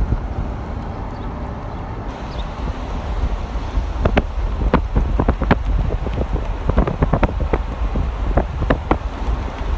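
Wind buffeting the microphone as a steady low rumble, with irregular sharp clicks and knocks from about four seconds in.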